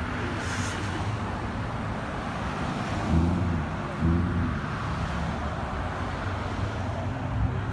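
Cars and SUVs driving past at low speed, a steady mix of engine and tyre noise, with two brief louder sounds about three and four seconds in.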